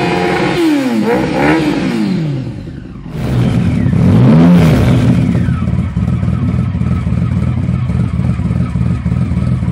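Yamaha R6 inline-four revved in several quick rises and falls. Then a Triumph Rocket III's inline-triple idles low and steady, with one short blip of the throttle about a second and a half later.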